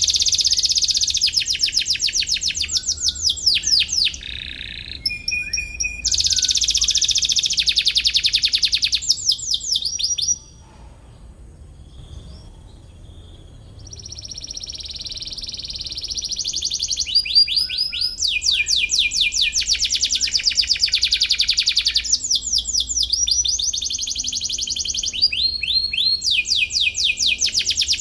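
Domestic canary singing: long runs of rapid, fast-repeated chirping trills, with a pause of about three seconds midway.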